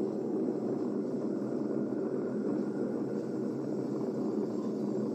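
Steady road and wind noise from a moving car, an even rush without changes.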